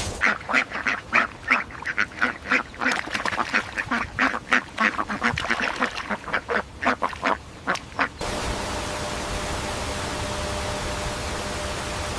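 Ducks quacking in a rapid run of short calls, about four a second, that stops abruptly about eight seconds in. A steady hiss follows.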